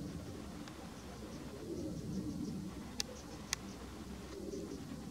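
Low cooing bird calls, repeated in the background, with two sharp clicks half a second apart about three seconds in.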